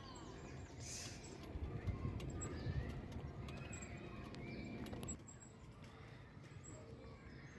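Faint outdoor spring ambience: small birds chirping now and then over a low background rumble that drops away about five seconds in.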